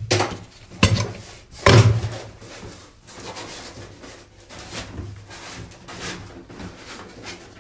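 Handling noise from a water pump being turned over and set down on a table. Three sharp knocks come in the first two seconds, then quieter rubbing and small knocks.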